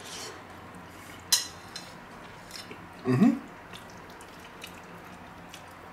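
Eating at the table: a fork clicks once sharply against the plate about a second in. About three seconds in, a man gives a short hum that rises in pitch as he tastes the food.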